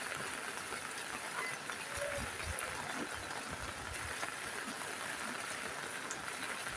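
Steady rain falling on a roof: an even hiss of drops with scattered ticks and a few soft low thuds.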